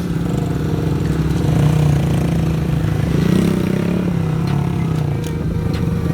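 Motorcycle engine running steadily, its revs rising a little and falling back about halfway through.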